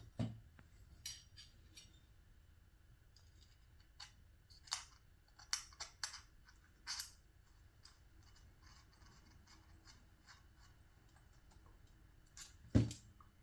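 Scattered light clicks and scratches of small metal parts and a hex driver being handled on a workbench, with one louder knock near the end as something is set down on the table.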